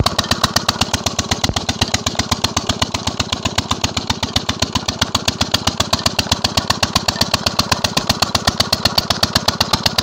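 16 hp KAM single-cylinder diesel 'Peter' engine running steadily, with an even, rapid beat of about eight or nine firing strokes a second, while it drives a pump by a flat belt.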